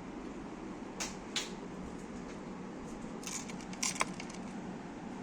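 Sharp clicks and light knocks of small hard parts being handled: two about a second in, then a quick cluster around three to four seconds in, over a steady low hum.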